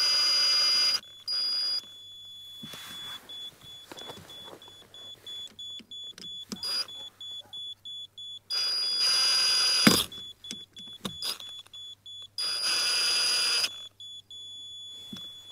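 Power drill-driver running in four short bursts of a second or two each, driving screws into a wooden facade batten bit by bit to set it level. A sharp click ends the third burst.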